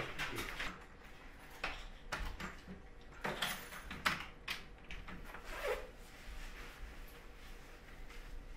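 A handful of light knocks and clicks, with some rubbing, as kitchen things are handled at a counter; they thin out after about six seconds.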